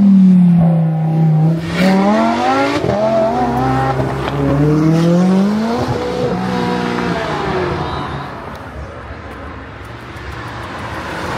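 Supercar engines accelerating hard past close by. The note drops as the first car goes by, then climbs again in several rising sweeps with breaks between them as a car pulls away through its gears. After that it fades to a distant rumble.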